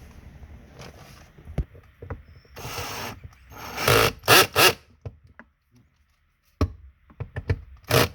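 A tool driving the 7 mm bolt that holds the Uconnect head unit in the dash, in short bursts: three quick ones about four seconds in and two more near the end.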